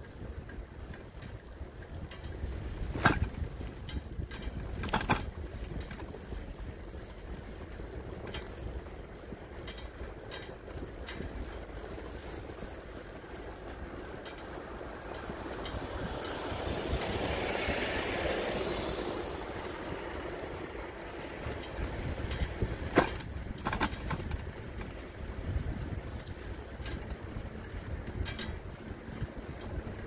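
Riding noise from a camera carried on a moving bicycle: a steady low rumble of wind and tyres on the pavement, with a few sharp knocks. About halfway through, a broad rush of noise swells and fades over several seconds.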